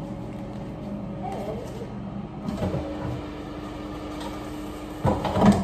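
Steady low hum of kitchen appliances. A higher tone comes on partway through and stops near the end, then a brief loud clatter of something being handled on the counter.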